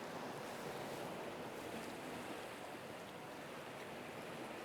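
Steady wash of sea waves and wind, an even hiss with no separate events.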